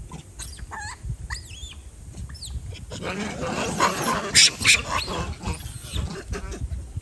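Rhesus macaques calling in a troop confrontation: a few high chirps, then from about three seconds in a burst of screams and harsh calls, loudest a second or two later. It is a territorial standoff between two troops that is mostly bluffing.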